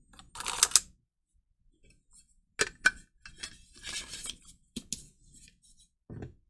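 Small hand tools and a plastic screwdriver-bit case handled against a metal amplifier case: scattered sharp clicks and light clinks with short rustles, and a soft knock near the end.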